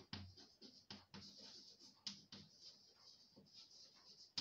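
Chalk writing on a blackboard: faint, irregular scratches and taps of the chalk strokes.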